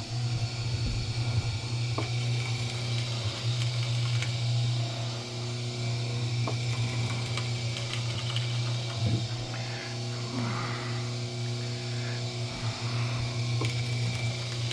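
Motorised copper wire stripping machine running steadily with a low hum, with a few light clicks as number 2 copper wire is fed through its blade.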